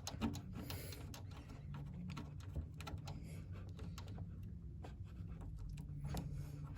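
Faint, irregular small clicks and scratches of hands handling computer cables and connectors at the back of a PC, over a low steady hum.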